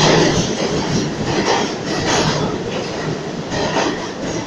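R46 subway train running into the station along the platform, the wheels clattering over the rail joints with irregular clicks, the noise loud and gradually easing.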